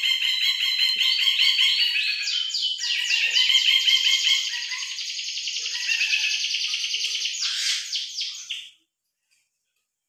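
Caged songbird singing a long, fast, unbroken rolling run of repeated chattering phrases, which cuts off abruptly about nine seconds in.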